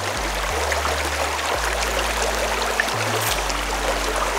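Background music with a bass line changing note about once a second, over the steady rush of a shallow creek riffle.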